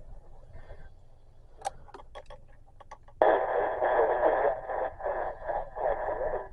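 Radio receiver static: a few faint clicks, then about three seconds in a loud, choppy hiss that cuts in suddenly and pulses unevenly.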